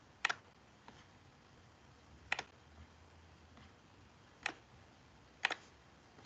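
Four sharp, isolated computer clicks, one to two seconds apart, with a few fainter ticks between them over a low room hiss.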